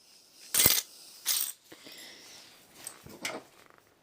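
Small hard parts of a phone being taken apart clicking and knocking: three sharp clicks, the first the loudest, with faint scraping between them.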